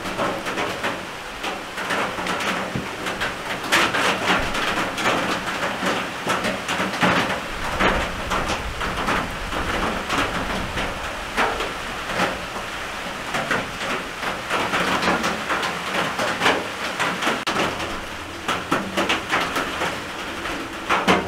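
Rain falling on the roof overhead, heard from inside a small hunting shack: a steady, dense patter of many separate drops.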